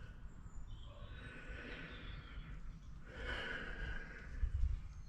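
A man breathing close to the microphone, two long airy breaths, with a couple of low bumps near the end.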